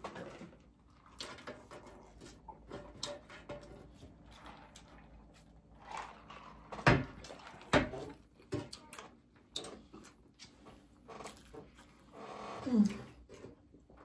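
Close-up eating sounds: chewing with small mouth clicks and smacks. There are two sharp knocks about halfway through and a short sliding pitched sound near the end.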